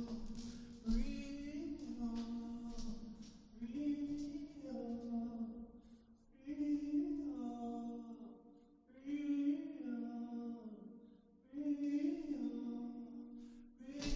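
Music: slow, wordless chant-like singing in five repeated phrases of about two seconds each, each gliding in pitch, with short silences between them.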